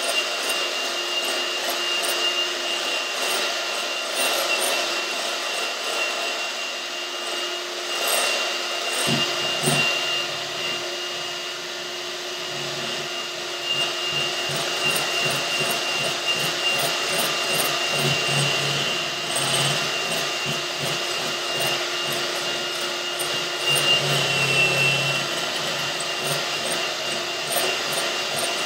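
Electric hand mixer running steadily with a high whine, its beaters whipping double cream in a glass bowl toward soft peaks.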